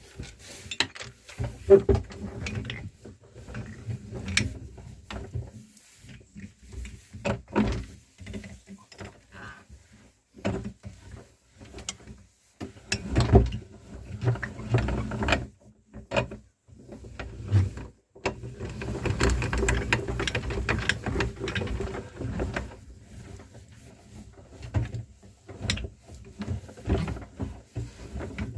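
Meat grinder crushing chocolate candies: irregular crunching and clicking of the mechanism as the candy is forced through, with a few sudden breaks.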